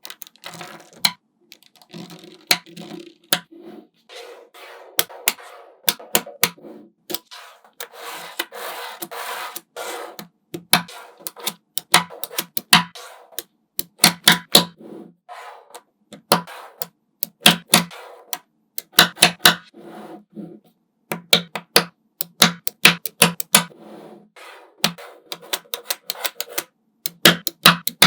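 Small magnetic balls snapping together in sharp, irregular clicks, often several in quick succession, with rolling and rubbing between the clicks.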